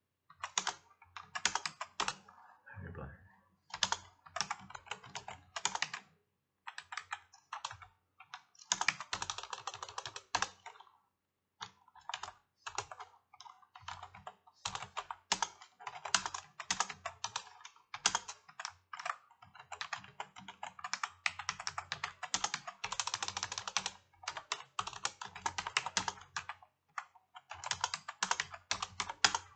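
Typing on a computer keyboard: quick runs of keystrokes in bursts of a few seconds, broken by short pauses.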